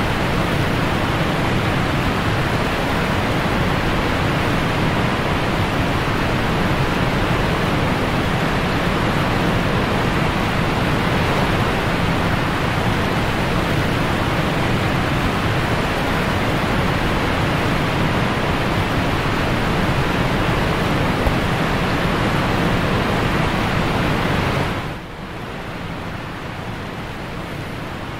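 Whitewater rapids rushing around and against the bow of an inflatable raft, a steady loud rush of water. About 25 seconds in it drops to a quieter, duller rush of calmer river water.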